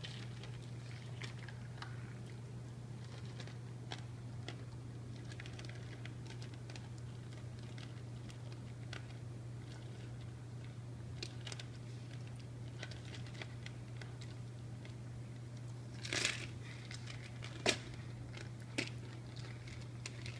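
A puppy eating its food: faint crunching and chewing with scattered small clicks, over a steady low hum. A few sharper clicks come near the end.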